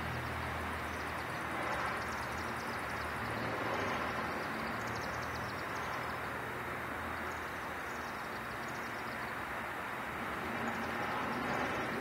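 Rapid high twittering of chimney swifts circling over a chimney as they go to roost, coming in bursts every few seconds, over a steady low hum and hiss of background traffic.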